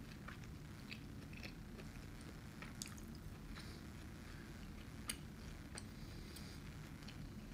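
Faint mouth sounds of someone eating: small wet clicks and smacks of chewing, scattered at uneven intervals, over a steady low room hum.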